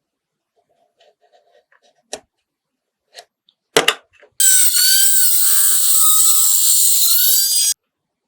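Light clicks and taps of small parts being handled, a sharp click, then a small handheld power tool runs for about three seconds with a wavering whine and cuts off suddenly near the end.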